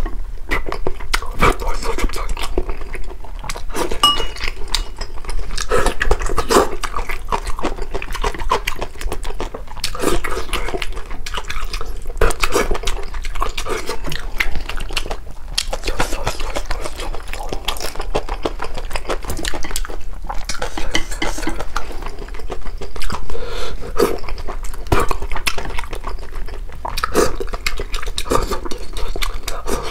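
Close-miked eating: wet slurping and chewing of fish in broth, with wooden chopsticks clicking and scraping against a ceramic bowl.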